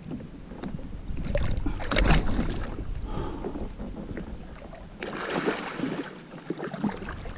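Water splashing against a kayak as a hooked blacktip shark thrashes beside it, in two loud bursts, the first about two seconds in and the second about five seconds in.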